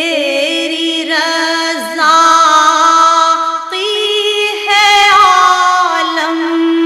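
Devotional singing: one voice holding long, wavering notes that step from pitch to pitch, with no clear words.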